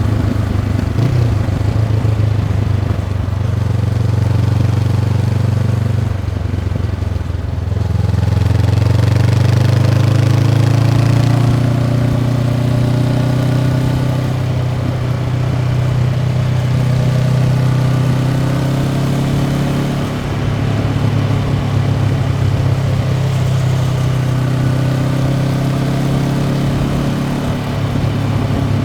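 Honda CB500X's parallel-twin engine through its stock exhaust while the bike is ridden. The engine note eases off briefly three times and climbs in pitch after the first dip.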